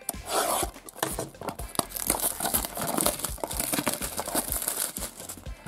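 Cellophane shrink-wrap on a small cardboard box, slit with a craft knife and peeled off, crinkling and tearing.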